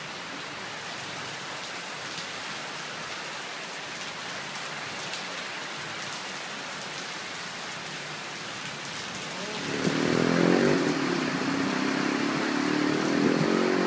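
Steady rain falling on leafy trees, an even hiss. About ten seconds in it grows louder, and a wavering pitched sound comes in over it.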